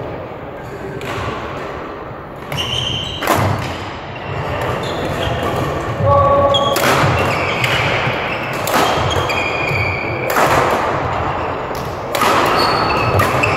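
Badminton play on an indoor court: sharp racket strikes on the shuttlecock every second or two, short high shoe squeaks on the court floor and thudding footsteps, ringing in a large hall.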